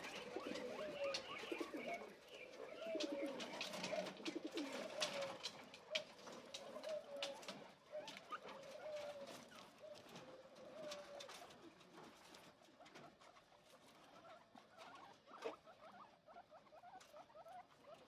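Guinea pigs chewing and rustling fresh grass, a stream of small crisp clicks that thins out later on. Over the first eleven seconds or so, a low curving call repeats about once a second and then stops.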